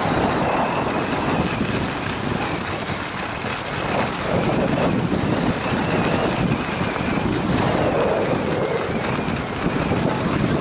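Skis sliding over groomed snow in a steady run downhill, with wind buffeting the handheld camcorder's microphone.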